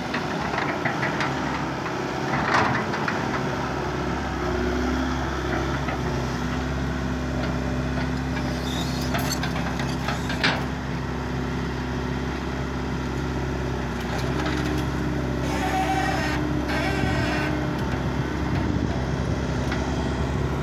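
A Link-Belt crawler excavator's diesel engine running steadily close by as the machine digs soil, with a couple of sharp knocks and a stretch of clattering.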